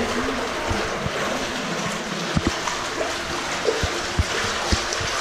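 Stream water flowing through a narrow rock tunnel, a steady rushing hiss, with a few low thumps of feet wading through the water.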